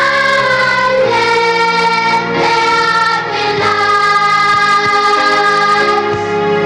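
Choir singing a slow, meditative hymn, the voices holding long notes that move to new pitches every second or so.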